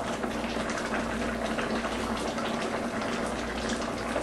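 Red snapper and tomato sauce cooking in a pan: a steady bubbling sizzle with faint crackles, over a steady low hum.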